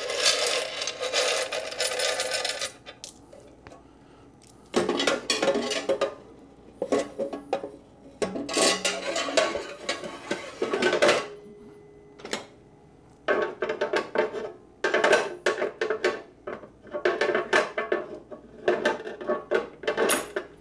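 Quarters clinking together and the metal coin box and parts of a coin-operated gumball vending machine rattling as they are pulled out and emptied. The clatter comes in several bursts with short quiet gaps between.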